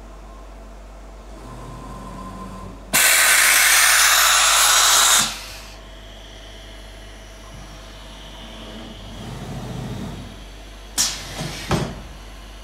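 XYZCAM V-Pro CNC router's pneumatics giving a loud blast of compressed air for about two seconds, which starts and cuts off suddenly. The machine's drives hum briefly as the gantry moves, and two short, sharp air releases come near the end.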